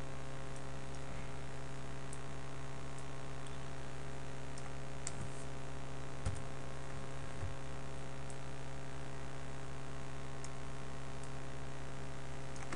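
Steady electrical mains hum made of several steady tones, with a few faint, scattered clicks of a computer mouse and keyboard as text is selected and deleted.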